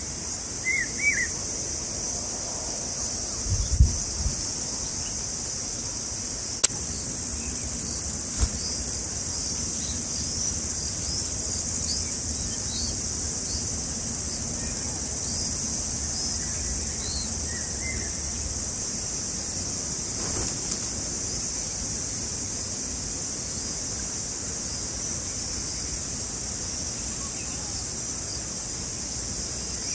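Steady high-pitched chorus of insects buzzing without a break. A few faint short bird chirps and several brief knocks sound over it.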